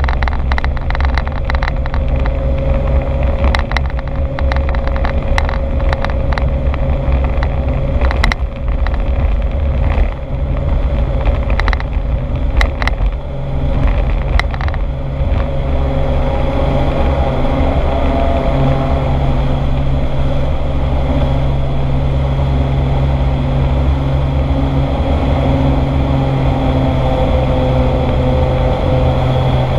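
Cessna 206's six-cylinder piston engine and propeller running at takeoff power, heard from inside the cabin. For the first fifteen seconds or so it is overlaid with sharp knocks and rattles from the wheels rolling over a rough dirt strip. After liftoff the knocking stops and the engine drones on steadily in the climb.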